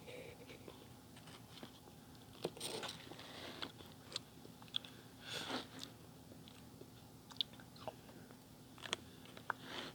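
Close-up eating sounds: biting and chewing, with scattered crunches and wet clicks, some short and some lasting about half a second, over a faint steady hum.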